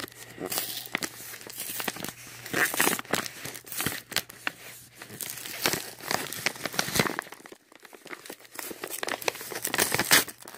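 Mail packaging crinkling and tearing as it is handled and picked open by hand, a dense run of irregular crackles and rustles.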